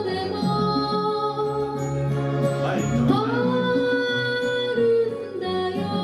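A young girl singing a slow song in Japanese with long held notes over instrumental accompaniment; about three seconds in she slides up into a new long note.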